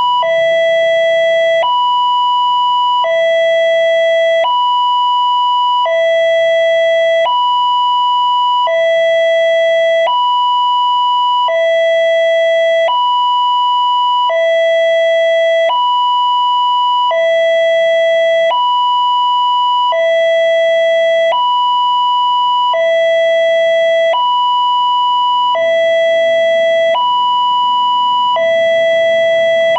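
Railway level crossing's electronic warning alarm from a horn loudspeaker, sounding as the crossing closes for a train. Two tones take turns, a lower and a higher one, each held about a second and a half, repeating steadily.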